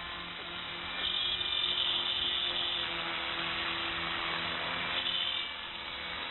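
Radio-controlled model helicopter flying, a steady whine of its motor and spinning rotor blades. The sound gets louder about a second in and drops back after about five seconds.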